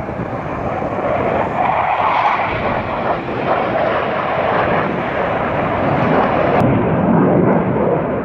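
Military jet fighters flying past low, their jet engines making a loud, steady rushing noise that grows slightly louder and deeper toward the end.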